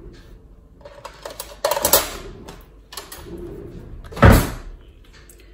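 Kitchen handling noises as a plastic tub of cream cheese is taken out and handled over a bowl. A cluster of clatters and clicks comes about two seconds in, and a single loud thump a little after four seconds.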